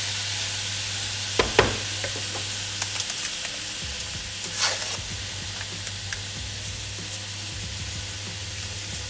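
Chopped mango and banana sizzling steadily in a hot frying pan as the fruit caramelizes. There are two light clicks about a second and a half in, and a short papery rustle near the middle as a small sugar sachet is torn open.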